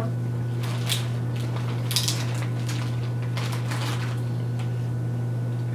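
Light table clatter at a meal: a few scattered soft clicks and clinks of dishes and utensils, over a steady low hum.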